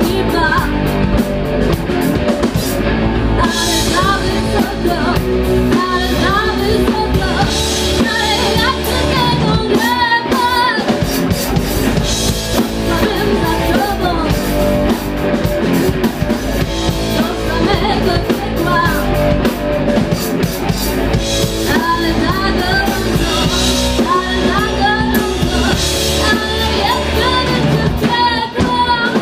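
Live rock band playing: a woman singing over electric guitars, electric bass and a drum kit. The low end drops out briefly about ten seconds in, then the full band comes back.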